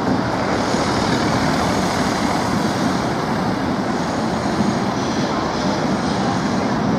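Old electric trams rolling through a curve on street tram tracks, mixed with city traffic: a steady rumble and hiss.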